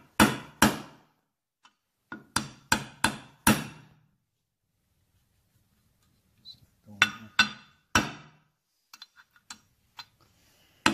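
Ball-peen hammer striking a steel socket used as a drift to press an oil seal into the aluminium timing cover of a Triumph 650 twin. The sharp metal-on-metal blows come in three bursts, two, then four, then three, followed by a few faint light taps near the end.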